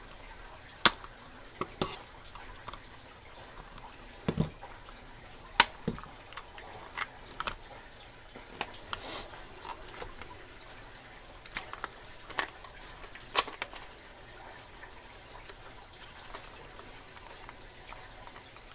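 Master Lock padlocks being taken off their cardboard packaging by hand: scattered sharp clicks and knocks at irregular intervals, with a few brief rustles.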